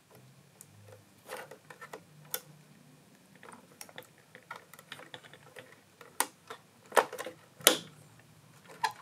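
Hands handling small hard plastic parts and packaging of an RC crawler kit: irregular clicks and taps, with a few sharper knocks in the second half.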